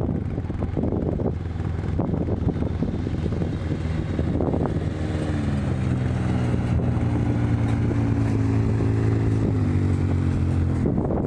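Wind buffeting the microphone, then about four seconds in a side-by-side UTV's engine comes up close, running at a steady pitch, and drops away shortly before the end.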